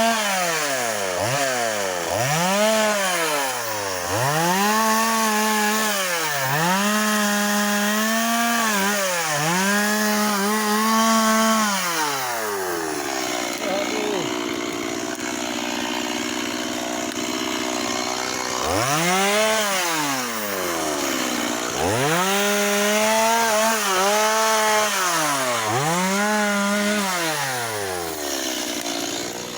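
Chainsaw cutting firewood, revved to full speed and let back down over and over, each cut lasting a second or two. About halfway through it runs steadier at a lower speed for several seconds, then revs up for four more cuts near the end.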